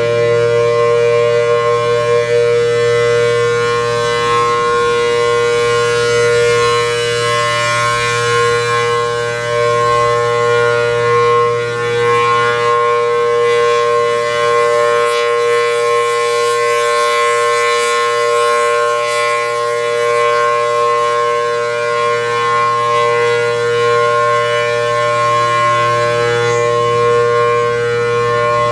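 Federal Signal Thunderbolt 1000T outdoor warning siren with a 4/5-port rotor sounding a steady two-tone chord at full pitch, its loudness swelling and dipping slightly, with a low hum under it.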